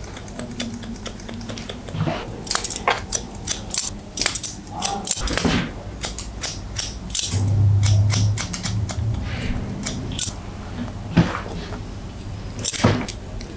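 Hair-cutting scissors snipping through dry hair, many quick sharp cuts in irregular clusters. A brief low hum comes a little past halfway.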